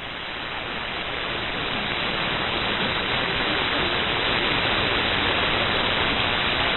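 Hiss of band static from a software-defined radio receiver tuned to an empty 11-metre CB channel, with no station on the frequency. The noise swells gradually louder over the first couple of seconds, then holds steady.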